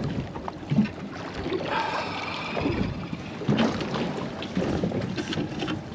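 Noise aboard a small fishing boat: a constant bed of wind and water noise, with a few brief indistinct voice-like sounds.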